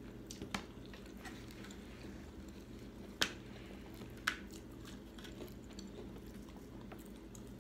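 Quiet eating sounds of fried chicken being chewed, with three short sharp clicks; the loudest click is about three seconds in. A low steady hum lies underneath.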